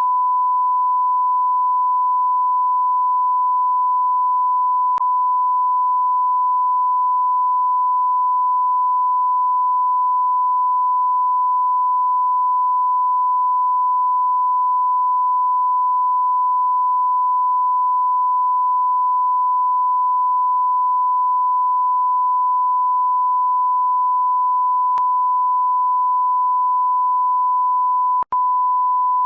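Continuous censor bleep: a single steady, high-pitched pure tone held without change, broken only by a brief dropout and click about 28 seconds in.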